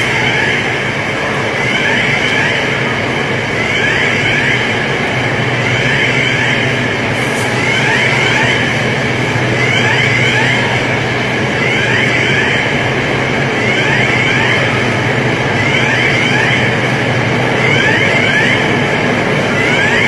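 Building fire alarm sounding in short groups of falling tones about every two seconds, over a loud steady rushing noise.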